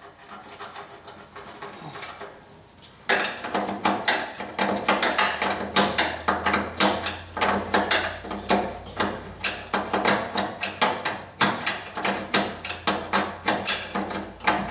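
A ratchet wrench clicking steadily as it is worked back and forth loosening a fastener at the fuel tank, about three clicks a second, starting about three seconds in.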